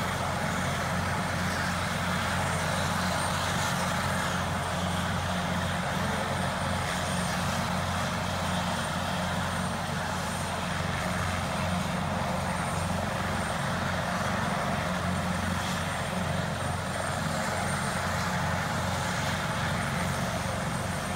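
Military transport helicopter idling on the ground, its turbine and rotor running at a steady, unchanging level.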